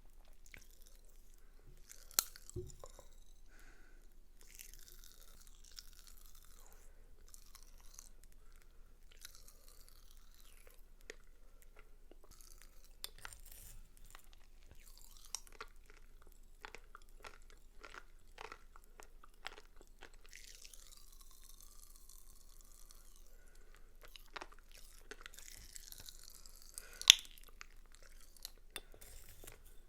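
Pop Rocks candy eaten close to the microphone: irregular sharp pops and crackles with soft chewing and mouth sounds, one pop about two seconds in and a louder one near the end.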